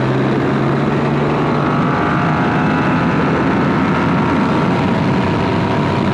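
Triumph Rocket 3's inline-three engine pulling hard in fifth gear from low revs, its pitch climbing slowly, with wind rushing over the microphone.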